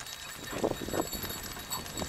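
Catahoula Leopard Dog trotting in harness on a concrete path, pulling a dog sulky: irregular taps of its feet and the cart's rattle, strongest about half a second to a second in, over a steady rush of noise.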